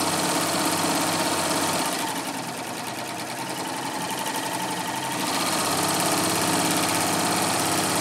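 Baby Lock Triumph 8-thread serger running at speed, stitching a wave stitch through a double layer of denim: a loud, fast, even whirring chatter of needles and loopers. It eases a little softer for a few seconds in the middle, then picks back up.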